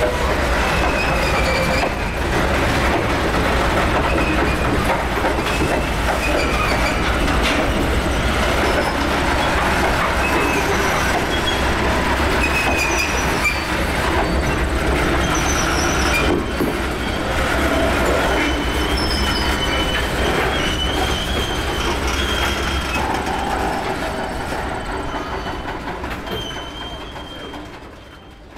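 A freight train of hopper cars rolling past close by: a steady rumble of steel wheels on the rails, with many short high wheel squeals. It fades out near the end.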